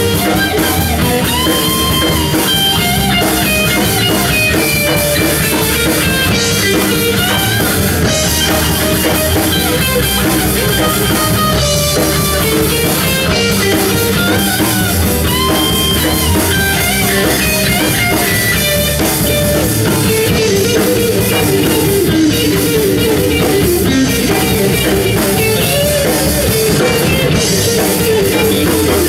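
Live rock band playing an instrumental stretch: electric guitar lines over bass guitar and a drum kit.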